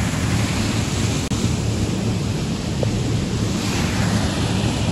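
Small waterfall pouring over rocks into a pool: a steady rush of water.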